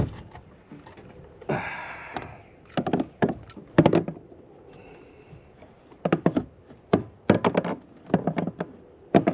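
Irregular knocks and thumps of gear and hands against a plastic fishing kayak, in quick clusters, with a brief scraping rush about a second and a half in.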